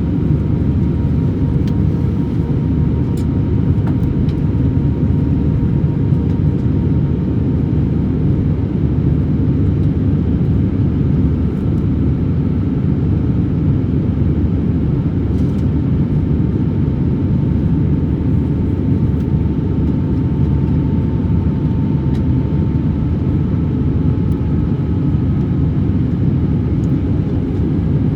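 Steady cabin noise of an Airbus A321-200 airliner: a deep, even rumble of engines and airflow, with a faint whine that drifts slowly lower in pitch.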